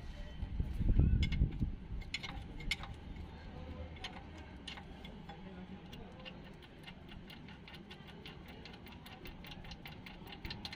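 Ratchet wrench clicking in a quick, even run of about four to five clicks a second over the last few seconds as a gearbox bell-housing bolt is undone. Earlier come a low thud about a second in and a few scattered metallic clicks.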